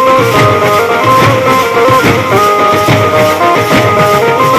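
Indian wedding-style brass band in full swing: many drummers beating large bass drums and side drums in a fast, dense rhythm, with an amplified banjo playing a stepping melody over them.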